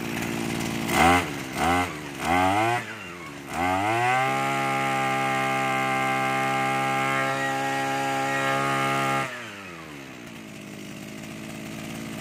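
Makita MEM261R backpack brush cutter's 26cc engine, test-run with the cutter unloaded: idling, blipped three times quickly, then revved up and held at a steady high speed for about five seconds before the throttle is let go and it drops back to a quieter idle.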